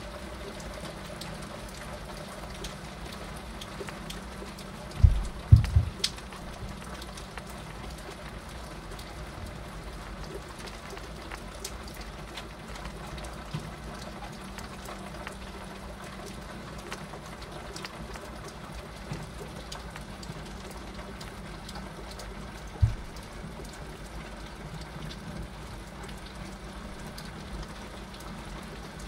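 Heavy rain falling steadily, drumming on the window glass. Three short, loud low thumps break through: two close together about five seconds in and one more later.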